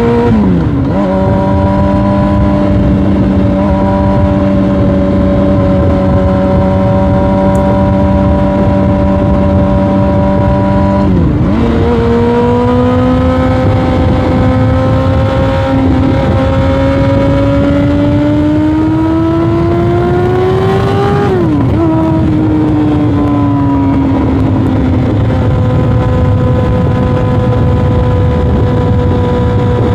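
Yamaha R1 sportbike's inline-four engine under way, changing up through the gears. Its pitch drops sharply at each shift: about half a second in, about 11 seconds in and about 21 seconds in. Between shifts it holds steady or climbs slowly.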